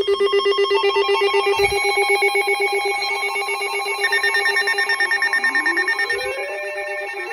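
Electronic tones layered at several pitches, pulsing quickly like a trill. From about five seconds in, they are joined by repeated rising sweeps that level off.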